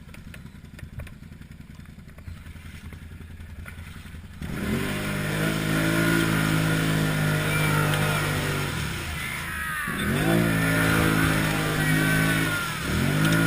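Can-Am Outlander 800 XT ATV's V-twin engine running low and quiet, then about four seconds in suddenly opening up loudly under throttle. The revs dip and climb again twice, near the middle and near the end.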